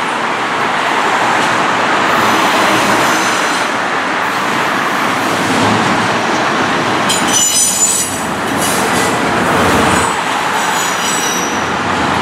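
Norfolk Southern double-stack intermodal freight train rolling steadily past, its steel wheels squealing in high, thin tones several times, loudest about seven to eight seconds in. Cars and a pickup truck pass on the road in front.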